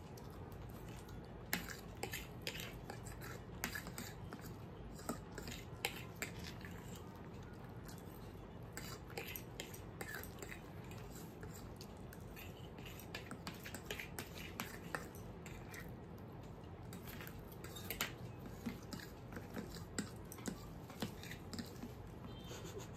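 Faint eating sounds of two people eating chowmein noodles and samosas: chewing, with scattered small clicks and scrapes of forks against plates.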